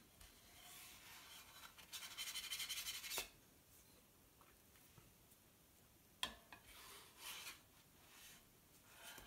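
A spatula scraping across a hard black plate as it slides under a pancake. The loudest is a grainy scrape lasting about a second, ending in a sharp tap. A click comes about two-thirds of the way in, with softer scrapes after it.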